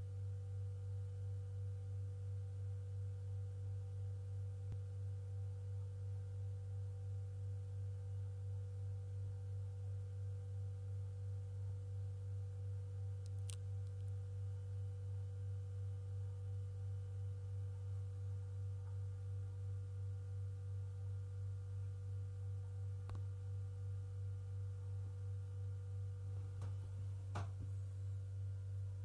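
Steady low-pitched hum with a slight regular pulsing a couple of times a second, over a fainter, higher steady tone. A faint click about halfway through and another near the end.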